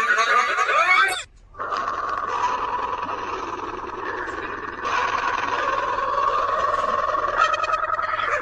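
Digitally processed, stretched sneeze sound. A short burst of wavering pitch sweeps breaks off about a second in, then gives way to a long, steady, loud drone that holds to the end.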